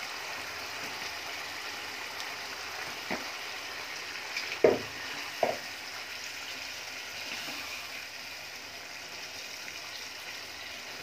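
Onion-tomato masala in a wok sizzling steadily as pieces of poa fish are added and moved with a spatula. Three short knocks come in the middle, the loudest a little under five seconds in.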